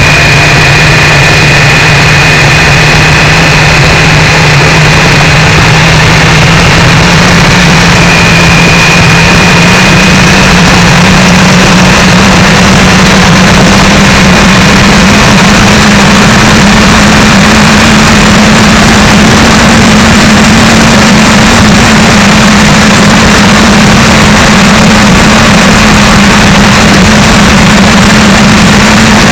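Triumph 955i motorcycle's three-cylinder engine running on the move, its note rising slowly and steadily, almost buried in loud, overloaded wind rush on a camera strapped to the bike's foglight.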